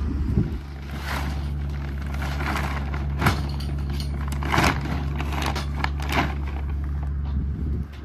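An engine running steadily, powering the silage bagger's hydraulics as they lift the folded plastic silage bag, with a few short crinkling rustles and sharp knocks from the bag and rack as it rises.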